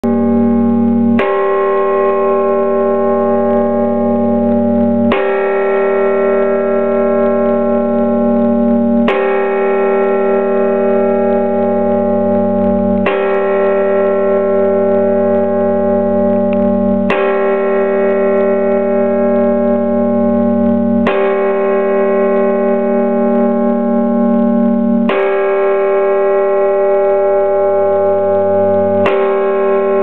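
Large bell in the Bruges belfry tolling, heard close up: one heavy stroke about every four seconds, eight in all. Each stroke rings on in a long, loud hum that is still sounding when the next stroke falls.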